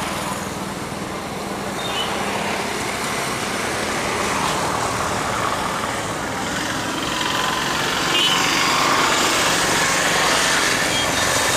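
Steady engine noise mixed with road traffic, growing somewhat louder about eight seconds in.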